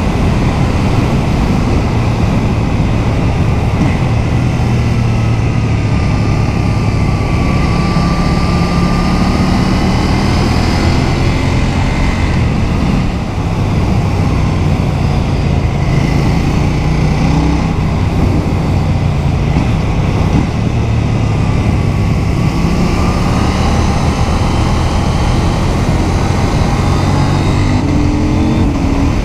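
KTM 790 Duke's parallel-twin engine running steadily under way at about 90 km/h, its pitch wavering slightly with the throttle, with a brief dip in level about 13 seconds in.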